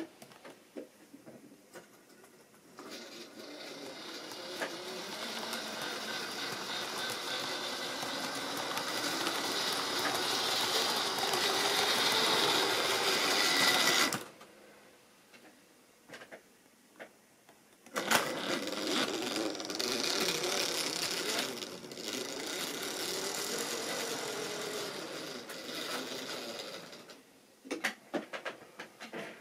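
Model railway train running past on the track, its small electric motor whirring and the wheels rattling over the rail joints. The sound builds, cuts off suddenly about halfway through, starts again a few seconds later and fades, with a few sharp clicks near the end.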